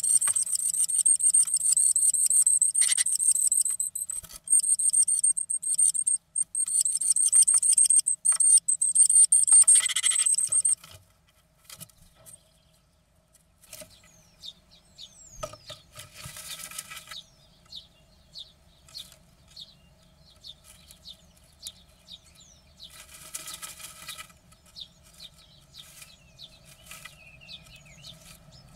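Great tit in a nest box giving a high, fast trilling call, broken by short pauses, for about the first ten seconds. After that, soft scratching and tapping of the bird shifting in the nest material, with two brief bursts of rustling.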